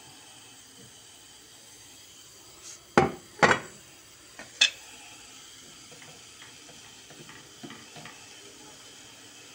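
Three sharp knocks a few seconds in as a glass oil bottle and a wooden spoon are set down and picked up on a stone kitchen counter. Then a wooden spoon stirs raw chopped onions in a nonstick frying pan, with a few light scraping clicks.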